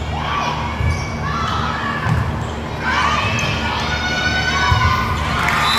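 Volleyball rally: dull thuds of the ball being hit, with players calling out and spectators shouting, which swell into cheering about three seconds in.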